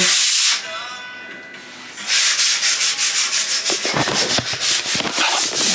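Hand sanding on a window frame: a short burst of scraping at the start, a pause of about a second and a half, then rapid back-and-forth strokes, about three a second.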